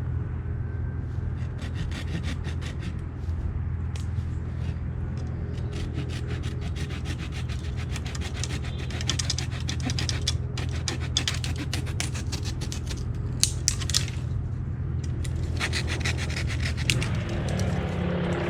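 Hand saw cutting through a small tree's trunk in quick back-and-forth strokes, with a couple of brief pauses.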